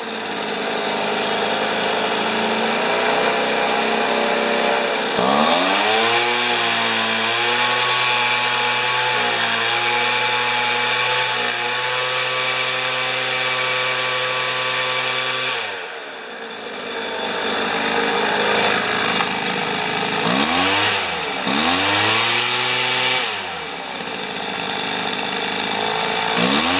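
Weed Eater leaf blower's small two-stroke engine running. About five seconds in it revs up and holds at high speed for roughly ten seconds, then drops back to a low idle, gets two quick throttle blips, and revs again near the end. It is being revved while its carburettor mixture is adjusted.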